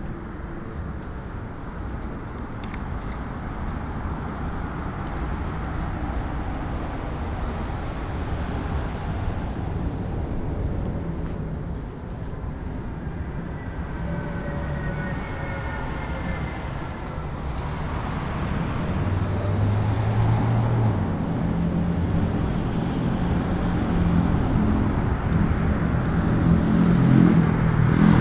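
City street traffic rushing steadily past. It builds in the second half as a motor vehicle's engine hum comes up close, loudest near the end.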